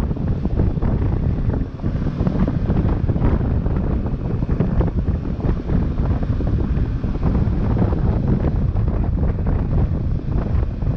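Wind buffeting the microphone of a riding motorcyclist's camera: a loud, constantly fluttering rumble over the sound of the moving bike.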